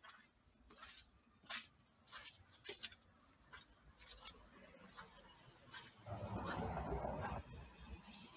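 Footsteps on snow and slush, a step about every two-thirds of a second. About six seconds in, a louder low rumbling noise comes in for a couple of seconds, with a thin high whistle above it.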